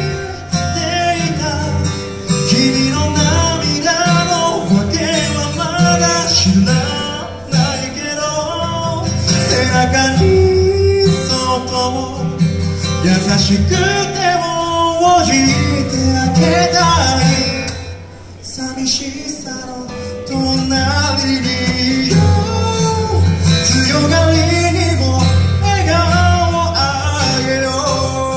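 Male singer singing live through a microphone and PA, accompanied by an acoustic guitar, with a short lull about eighteen seconds in.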